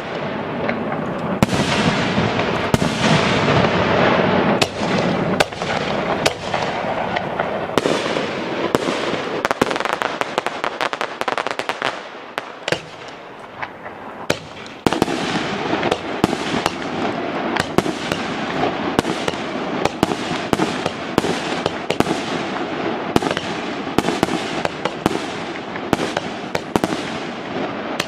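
Aerial fireworks heard from very close: a dense run of sharp bangs and crackling. It eases off about twelve seconds in, then a fresh barrage starts about fifteen seconds in.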